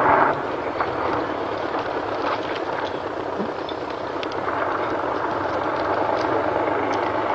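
Recovery vehicle's engine running hard under load as it pulls, a steady drone that grows louder about four and a half seconds in. A short loud burst comes at the very start.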